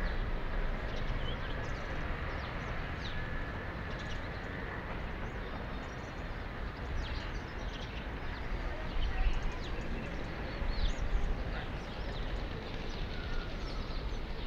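Outdoor ambience: many small birds chirping in short calls, over a steady low rumble.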